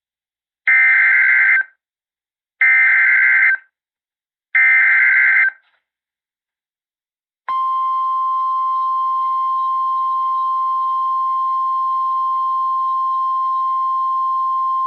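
Emergency Alert System SAME data header: three short, harsh digital bursts about a second apart, warbling between two high pitches. Then, a couple of seconds later, the NOAA Weather Radio 1050 Hz warning alarm tone starts, one steady loud beep-tone held on. Together they signal that a new warning is about to be read.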